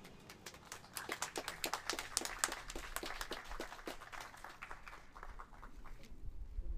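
Audience applause: a modest crowd clapping unevenly, thinning out after about five seconds.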